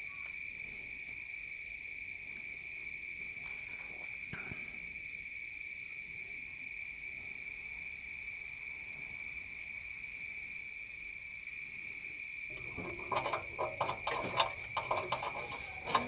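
A utility-knife blade scraping in quick irregular strokes over a fridge's aluminium evaporator plate, taking off burnt paint, starting about three-quarters of the way in. A steady high-pitched whine runs throughout.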